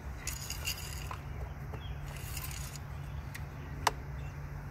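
Engine oil dipstick being slid in and out of its tube with a rag, making two short scraping, rustling passages, then a single sharp tap near the end. A steady low hum runs underneath.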